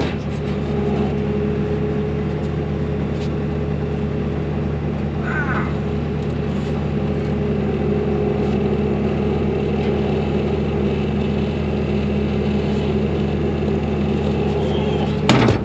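Tractor engine idling steadily, a low even hum.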